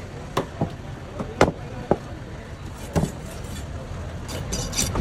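Heavy knife chopping through mackerel tuna on a wooden block: about six sharp chops, five in quick succession in the first two seconds and one more at about three seconds, over a steady low background rumble.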